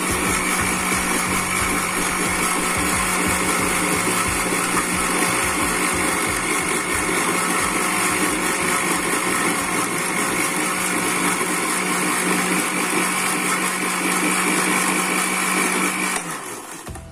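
Cheap electric blender running steadily while blending chopped kencur (aromatic ginger) root with water, then switched off near the end, its motor winding down.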